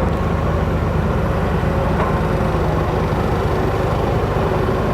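Heavy diesel engine of the construction machinery running steadily at an even pitch.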